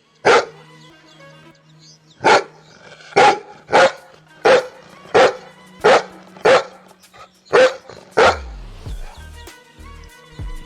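Dog barking: about ten short, sharp barks, the first alone, then a run of barks roughly every two-thirds of a second.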